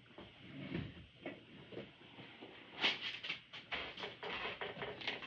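Quiet footsteps and rustling as a pair of slipper-boots is handled and pulled on, with a quick run of short scuffs and taps in the second half.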